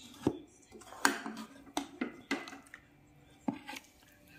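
A metal spoon knocking and clinking against a metal cooking pot, about eight short sharp strikes at uneven spacing, the loudest about a second in.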